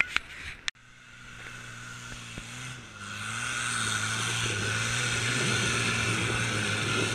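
Off-road 4x4's engine held at high revs under load as it claws up a steep dirt bank, its wheels spinning and flinging soil and stones; the engine sound builds over the first few seconds and then holds steady and loud. A couple of sharp knocks come right at the start.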